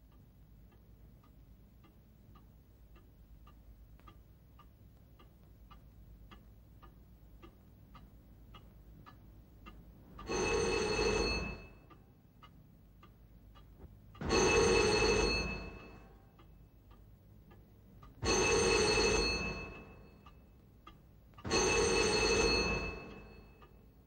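A clock ticking faintly about twice a second, then from about ten seconds in an old telephone's bell ringing four times, each ring about a second and a half long and starting roughly every four seconds.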